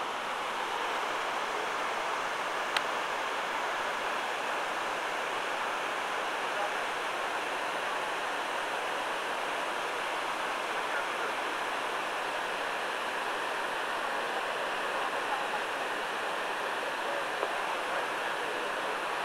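Water from a large man-made waterfall pouring steadily down the walls of a reflecting pool into the basin below, a continuous rushing. A single sharp click about three seconds in.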